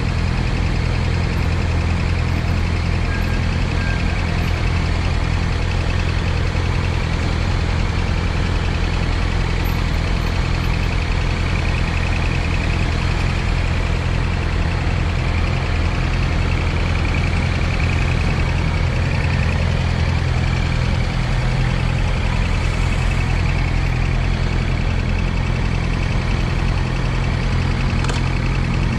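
2020 Yamaha R6 inline-four engine idling steadily, with a noise in its running that the owner regards as abnormal.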